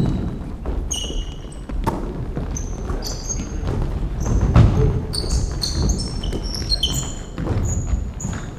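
Basketball practice play on a hardwood gym floor: sneakers squeaking repeatedly as players cut and stop, with the ball bouncing and thudding.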